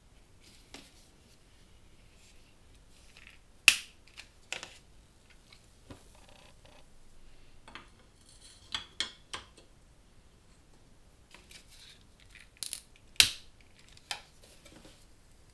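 Scattered metallic clicks, light knocks and a short scrape as a small brass burner is fitted into the firebox of a model hot-air engine and worked with a hand tool; two sharp clicks stand out, about 4 seconds in and near the end. The engine itself is not yet running.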